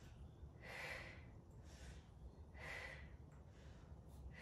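Faint breathing of a woman exercising: three soft breaths about two seconds apart, paced with a Pilates knee-in, leg-back movement.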